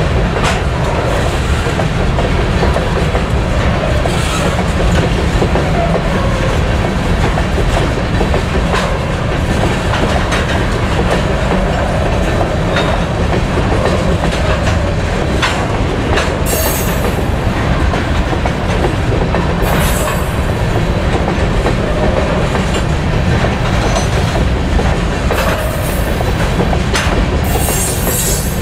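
Loaded covered hopper cars of a freight train rolling steadily past at close range: a heavy rumble with wheels clacking over rail joints. A few short high-pitched squeals come from the wheels in the second half.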